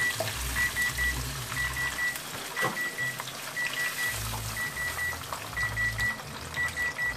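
An electronic kitchen timer beeping in quick groups of short, high pips, each group about once a second, over the sizzle of hot frying oil as fried chicken tenders are lifted out with tongs. A single clink comes about two and a half seconds in.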